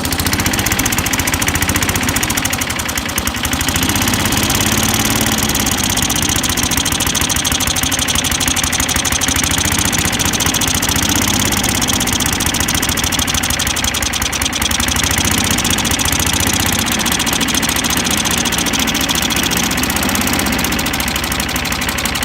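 Craftsman lawnmower's single-cylinder engine, fed by a Geet reactor instead of a carburetor on a water, oil and gasoline mix, running steadily at a raised speed. Its speed sags briefly about three seconds in, then holds.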